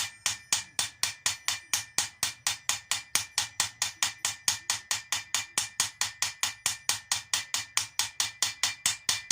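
A hammer tapping lightly and steadily on a socket, about five taps a second, each tap ringing metallically, driving a propshaft centre bearing onto its seat.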